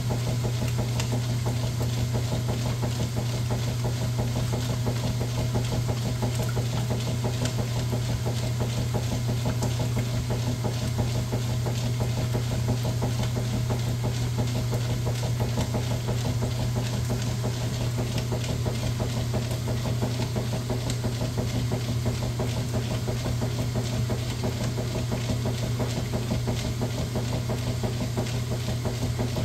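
Washing machine running with a steady motor hum and fine, rapid mechanical ticking.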